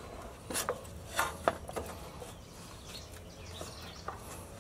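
A few light metallic clicks and scrapes, mostly in the first second and a half, as a pry bar is levered against a CV axle carrier bearing and its bracket. The bearing's outer race is rusted fast in the bracket and does not move.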